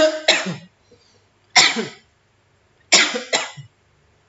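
A man coughing three times, about a second and a half apart: a double cough, a single cough, then another double cough.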